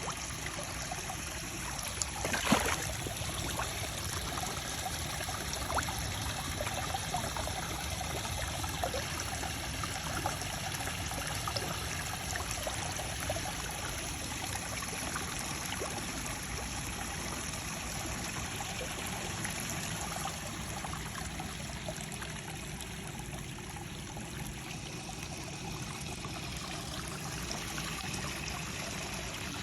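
Running water trickling and splashing steadily, with small drips and ticks through it, from an outdoor water feature. A brief sharp knock comes about two and a half seconds in.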